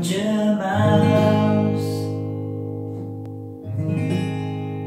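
Acoustic guitar chords strummed and left to ring, slowly fading: one struck about a second in and another near the end, closing the song.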